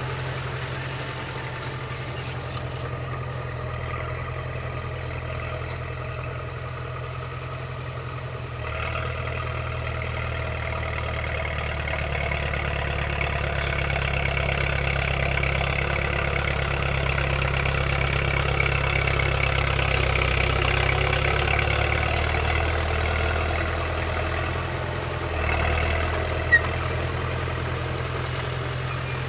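Cat D4C crawler dozer's diesel engine running steadily. About nine seconds in it takes on load and grows louder as the dozer works the earth pile, then eases off near the end. A single sharp click comes shortly before the end.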